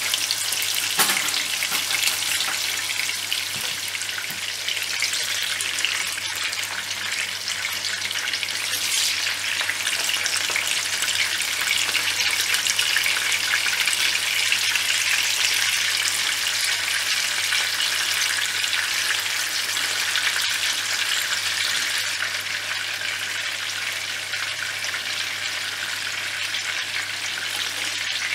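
Chicken seekh kebabs on metal skewers shallow-frying in hot oil in a frying pan over medium heat: a steady crackling sizzle and spatter.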